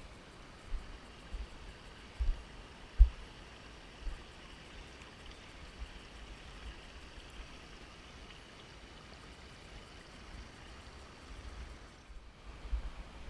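Steady rushing of water from the waterfall cascades. Short low thumps are heard a few times in the first few seconds and again near the end.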